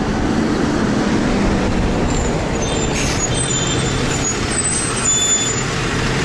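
A rubber-tyred replica trolley bus pulls up to the stop with its engine running, its brakes giving thin high squeals and its air brakes a hiss about three seconds in, then idles at the curb with a low steady hum.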